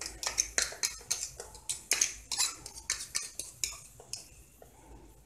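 Metal fork tapping and scraping minced garlic out of a small plastic tub into a pot, a quick run of sharp clicks that thins out after about four seconds.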